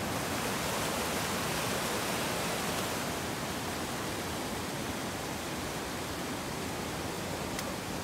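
Steady rushing of water from a mountain stream, an even, unbroken hiss.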